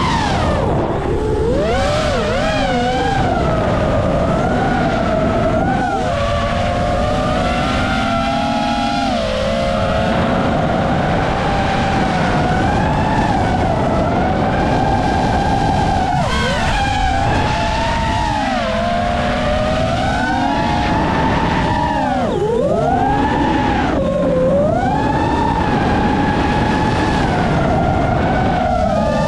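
Motors and propellers of a 7-inch FPV quadcopter whining in flight. Several tones rise and fall together as the throttle changes, with quick swoops down and back up.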